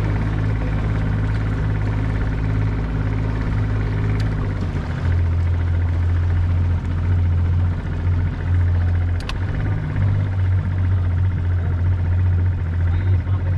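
Outboard motor running steadily as a small skiff moves under way, a low, even drone.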